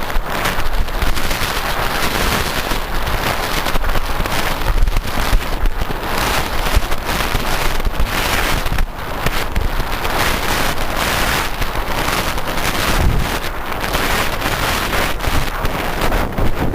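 Heavy wind buffeting the microphone on a motorboat under way at speed, with constant crackling and a low rumble throughout.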